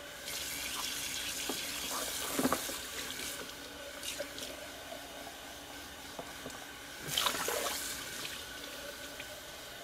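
Tap water running into a portable blender's plastic jar and splashing into a stainless steel sink as the jar is rinsed out. There is a knock about two and a half seconds in, and a second, louder gush of water about seven seconds in.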